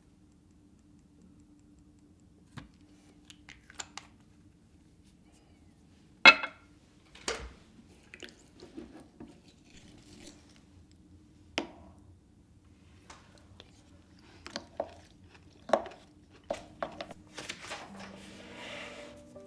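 Scattered taps, clicks and knocks of household objects being handled, the loudest about six seconds in and more frequent in the second half, with a brief rustle near the end, over a faint steady hum.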